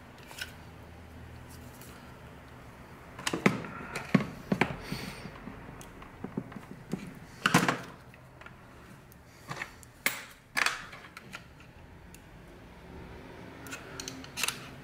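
Scattered plastic clicks and knocks from hands handling and twisting a Rode NT-USB Mini microphone's body and mount, a few seconds apart with quieter handling between.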